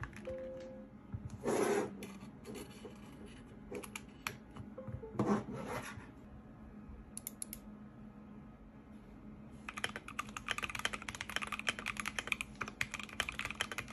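A mechanical keyboard being handled, with a couple of brief rubbing sounds as it is moved on a desk mat. From about ten seconds in comes rapid typing on its keys: dense, fast clacking.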